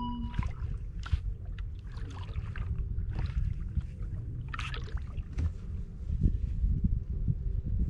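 Kayak paddle blades dipping and splashing in calm water, a stroke roughly once a second, over a steady low rumble.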